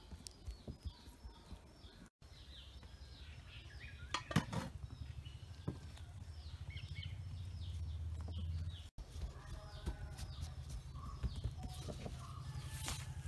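Small birds chirping outdoors, many short falling calls repeated again and again, over a low steady hum that starts about two seconds in; a single sharp knock about four seconds in.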